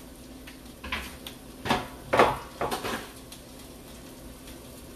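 Cookware being handled: a handful of short knocks and clinks of pans and utensils, the loudest about two seconds in, then only a low steady background.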